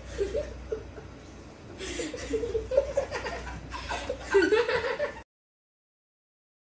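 A girl and a young boy laughing in stifled chuckles and giggles behind their hands. The laughter cuts off suddenly about five seconds in.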